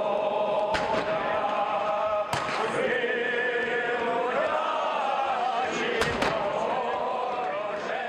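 A group of voices singing or chanting in long held notes, with four sharp bangs: one about a second in, one a little after two seconds, and two close together around six seconds.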